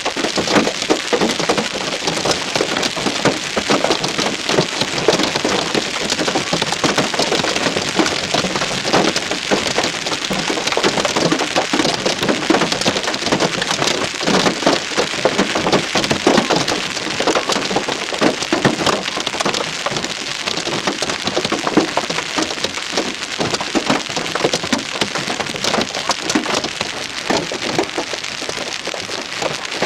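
Hail and heavy rain pounding on a car, a dense unbroken clatter of hard, irregular impacts on the metal body.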